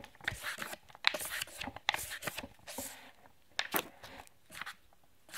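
Paper book page being flipped quickly back and forth, rustling and flapping with sharp crackles at an uneven pace.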